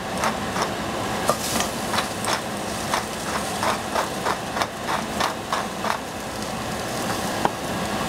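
Knife chopping on a cutting board: a run of quick, slightly irregular strokes, about three a second, which stops around six seconds in, with one more stroke near the end. A steady hum lies underneath.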